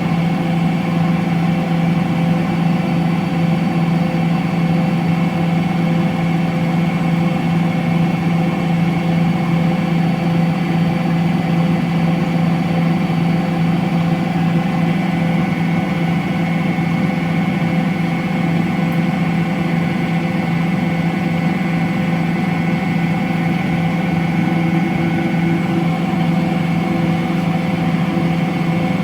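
Electrolux CompassPRO WH6-27 commercial washer spinning a load at a steady speed: a constant motor hum with several steady tones above it and no change in pitch.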